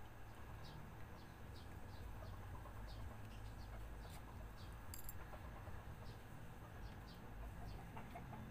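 Faint bird chirps, short calls repeated at irregular intervals, over a low steady hum. One sharp tick comes about five seconds in.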